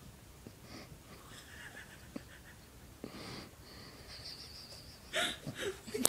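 Pomeranian snoring softly: faint wheezy breaths a second or so apart, one drawn out into a thin high whistle about four seconds in, with louder noises near the end.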